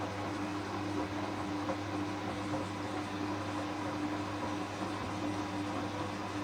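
Hoover washing machine tumbling its drum on the first rinse, the motor giving a steady hum with a constant low tone.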